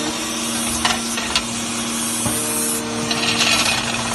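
Ladder tube riveting machine running with a steady motor hum, a few sharp metal knocks as the ladder is worked through it, and a short hiss about three seconds in.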